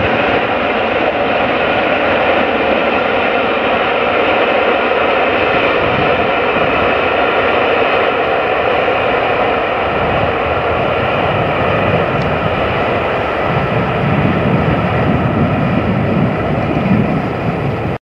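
Royal Scot 46100, a three-cylinder 4-6-0 steam locomotive, working hard at speed with a train; its exhaust is a steady rushing noise. A deeper rumble joins about thirteen seconds in, and the sound cuts off suddenly near the end.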